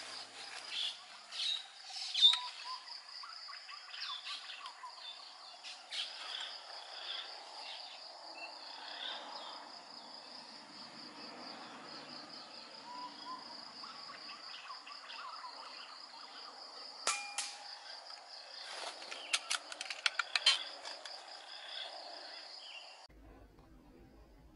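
Outdoor woodland ambience: a steady, finely pulsing high insect drone with scattered short bird chirps, and a few sharp clicks, about two seconds in and again near the end. The sound cuts off to silence shortly before the end.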